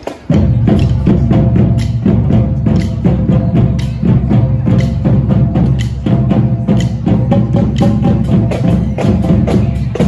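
Marching drum line coming in loud all at once just after the start and playing a fast, dense drum cadence.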